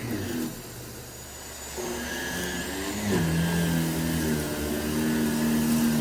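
Miele C2 Compact Electro+ canister vacuum running with its electric power head: a steady hum with a few pitched tones. About half a second in the sound drops away sharply. It comes back just under two seconds in, shifts pitch at about three seconds, then settles into a steady hum again.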